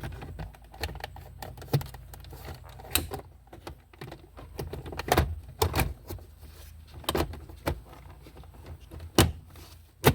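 Plastic centre-console trim of a 2007 Lexus IS250 being pushed down and fitted by hand: irregular clicks and knocks of plastic on plastic, with the sharpest knocks about nine seconds in and near the end.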